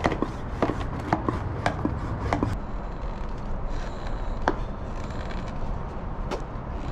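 Hand pump of a one-gallon garden pump sprayer being worked to pressurize it as an air tank: a sharp knock with each stroke, about two a second for the first couple of seconds, then a few scattered knocks.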